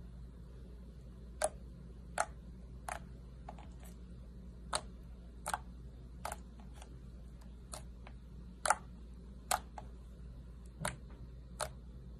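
Slime clicking and popping as it is worked by hand: about fifteen sharp clicks at uneven spacing, roughly one a second, over a faint steady low hum.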